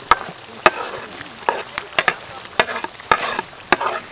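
Hot oil in a wok sizzling as sliced shallots are tipped in from a wooden board, with sharp, irregular pops and crackles a few times a second.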